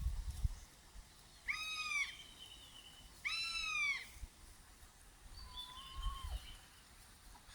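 Wild birds calling. Two loud, drawn-out calls a second and a half apart each rise and then fall in pitch, with thin, higher calls from other birds around them and a lower call that drops off at its end near the end.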